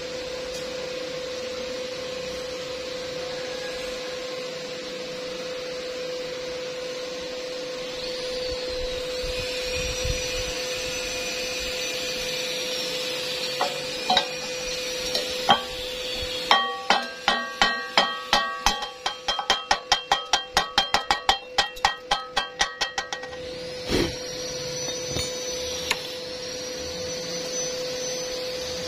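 Chipping hammer knocking slag off a freshly laid stick-weld bead: a few single metal knocks, then a fast, even run of sharp ringing strikes, about four a second, for several seconds past the middle.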